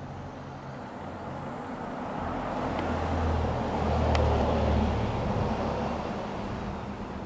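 A motor vehicle passing by: a low engine hum that swells to its loudest about four seconds in and then fades.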